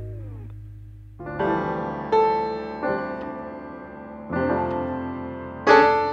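Background music: a held chord fades and slides down in pitch at the start, then, after a short pause, piano chords are struck one after another, each ringing away before the next.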